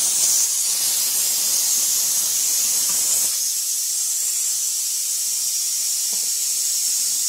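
Steady hissing from food cooking in a pot on the stove.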